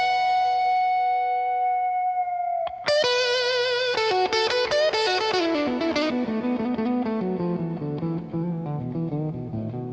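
Slow blues electric guitar solo with distortion and echo effects: a note bent up and held for about two and a half seconds, then a quick run of notes with vibrato that steps down from high to low.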